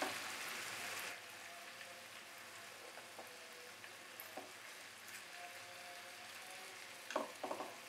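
Marinated chicken pieces sizzling in oil in a non-stick frying pan: an even hiss, stronger for about the first second, then lower and steady. Near the end come a few sharp clicks of tongs against the pan as the pieces are turned.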